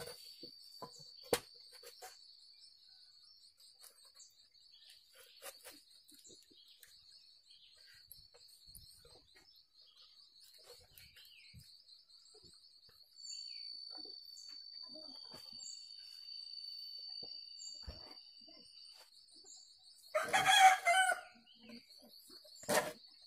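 A rooster crows once, loudly, about twenty seconds in, over a faint steady high-pitched insect drone and scattered light ticks.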